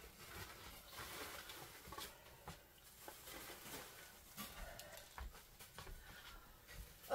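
Faint rustling of a plastic bag and light knocks of small items being handled while tidying up, scattered soft clicks throughout.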